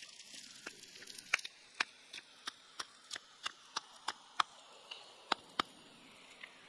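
Stone pestle pounding red chilies in a stone mortar: a run of sharp knocks, about three a second, that stops near the end.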